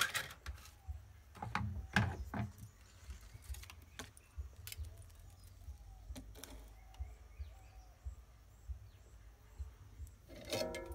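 Scattered clicks and light rattles of small parts and wires being handled during wiring work, with the strongest knocks near the start and about two seconds in, over a low hum. Faint bird chirps in the background.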